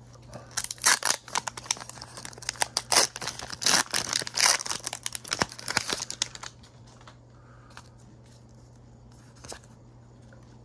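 Foil Pokémon booster-pack wrapper being torn open and crinkled by hand, a run of sharp crackling rustles that stops about six and a half seconds in.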